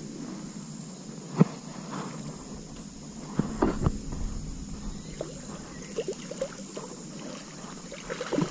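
A hooked tengas daun thrashing and splashing in shallow stream water as it is reeled toward the bank, in a few short sharp splashes, the loudest about a second and a half in. A steady high drone of insects runs underneath.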